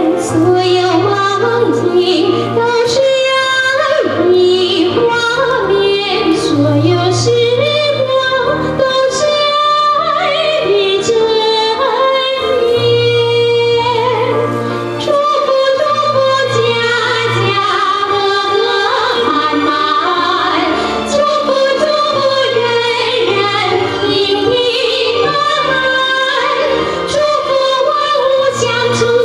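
Two women singing a Chinese pop-style duet into microphones over an instrumental accompaniment, with long held notes over a steady bass line.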